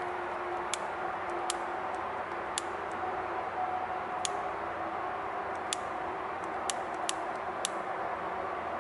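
Steady outdoor hiss with a faint hum, broken by about eight sharp, irregularly spaced clicks.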